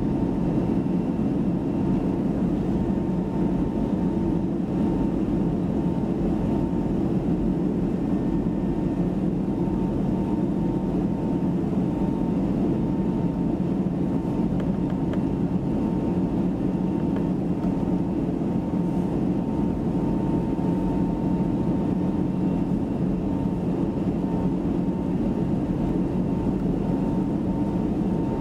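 Steady engine and airflow noise heard inside the cabin of an Airbus A320neo with Pratt & Whitney PW1100G geared turbofans, a dense low rush with a faint steady whine above it. The level neither builds nor falls.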